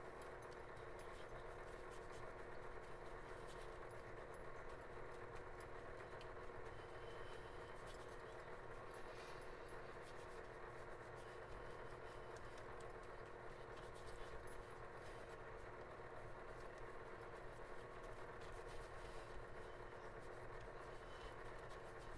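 A faint, steady hum with light scattered crackles: quiet room tone.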